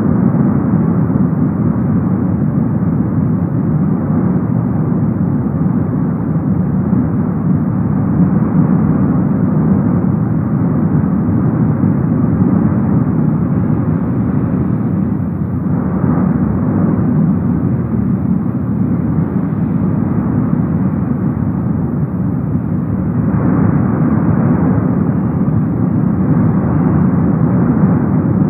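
Cumbre Vieja volcano's lava fountain jetting from its vent: a continuous, loud rushing noise like a jet engine. It swells slightly about halfway through and again near the end.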